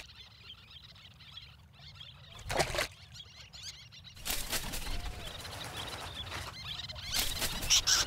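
Outdoor shoreline ambience with little terns: mostly quiet, with a short sudden noise about two and a half seconds in and a louder burst of harsh, scratchy sound near the end.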